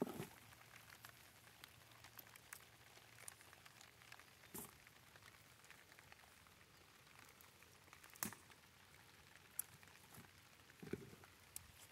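Light rain pattering faintly on plastic mulch and tomato plants, many small drop ticks. A few louder knocks and rustles come from tomatoes being picked and dropped into a plastic bucket.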